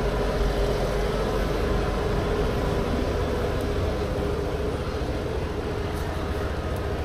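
Suzuki Burgman Street 125 EX scooter's single-cylinder four-stroke engine running steadily at low revs as the scooter creeps along at walking pace.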